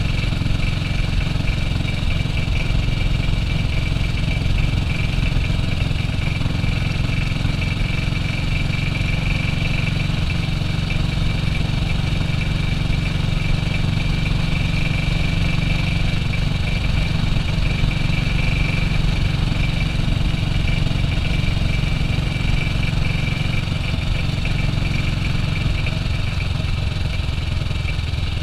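1967 BSA B40 WD's single-cylinder four-stroke engine running at a steady pace, with no clear revving up or down.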